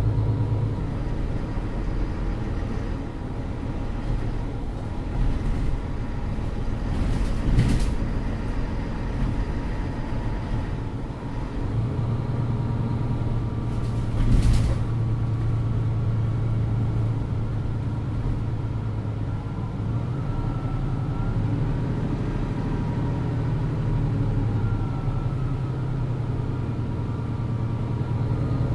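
Mercedes-Benz NG 265 city bus with a ZF Ecolife automatic gearbox under way, heard from inside the passenger cabin: a steady engine drone, with two short knocks several seconds apart and a faint rising whine about two-thirds of the way through.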